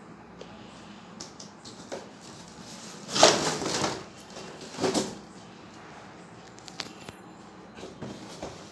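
Cardboard firecracker gift box being handled: two brief rustling, scraping bursts about three and five seconds in, with a few light taps and clicks between.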